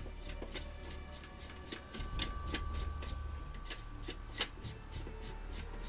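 Irregular light clicks and ticks, a few a second, from an airsoft M4's barrel extension and small parts being handled and screwed on by hand, with one sharper click about four and a half seconds in.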